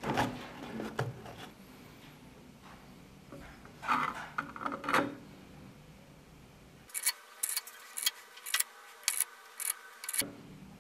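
Hands handling a smartphone and a 3D-printed plastic photo stand: plastic rubbing and knocking, then a run of about eight sharp clicks in the last few seconds.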